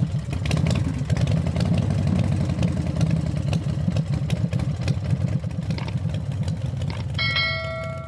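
Intro sound effects: a steady low rumble with crackling clicks through it, then a single bell ding about seven seconds in, the subscribe-button notification chime.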